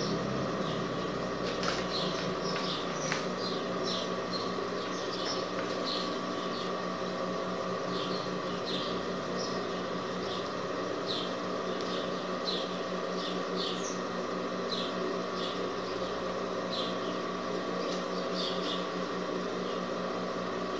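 Short, high chirps repeated irregularly, like a small bird chirping, over a steady mechanical hum.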